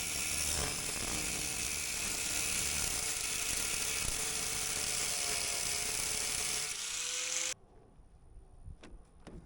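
A handheld power tool runs steadily with a high hissing grind, which fits rust stripping on sheet metal. It cuts off abruptly near the end, and a few light clicks follow.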